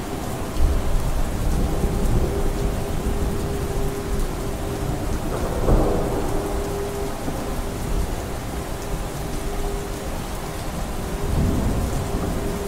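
Steady rain with rolling thunder. A deep rumble sets in about half a second in, swells to a louder clap near the middle, and rolls up again near the end.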